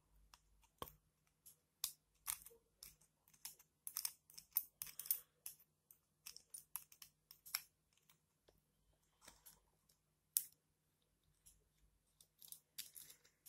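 Faint, irregular small metal clicks and scratches of a pointed hand tool working at the steel plate and retaining nut of a Shimano Zee bike shifter to free the nut.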